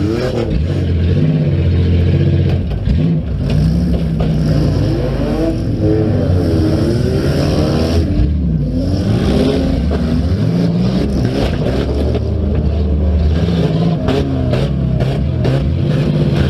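Demolition derby car engine revving up and down repeatedly, with several sharp knocks and clatter near the end.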